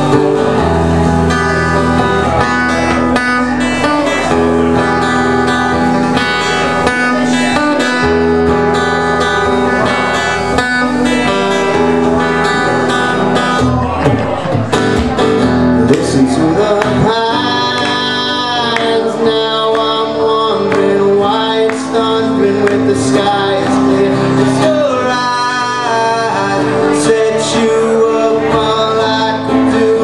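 A man singing solo with his own acoustic guitar, strumming chords steadily; the singing is clearest in the second half.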